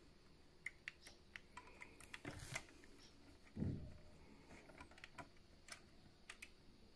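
Faint, scattered light clicks and taps of small plastic parts being handled as a cable connector is pressed into the PlayStation 4 Pro's board, with one soft thump about three and a half seconds in.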